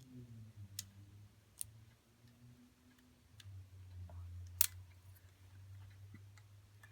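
Handling noise: a few sharp clicks and taps, the loudest about four and a half seconds in, over a steady low hum.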